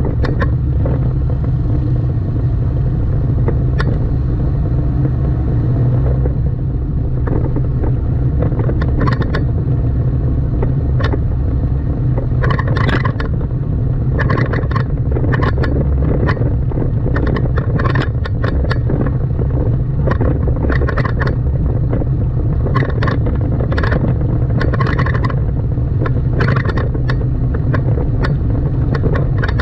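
Car driving in city traffic: a steady low road and engine rumble, with short irregular clatters and knocks coming thick through the middle and later part.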